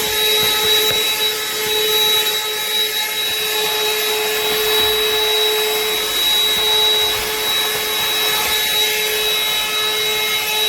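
BLACK+DECKER 20-volt dustbuster cordless handheld vacuum running steadily while picking up debris: loud, a constant motor whine with a high tone over a hiss.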